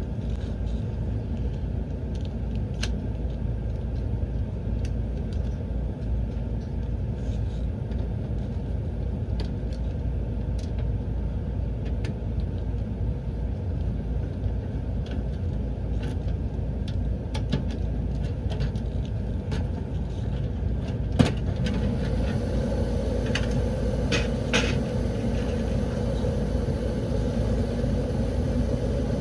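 Furnace running with a steady low mechanical rumble. A single sharp click comes about 21 seconds in, and right after it a steady higher hum joins in and keeps going, like a motor coming on.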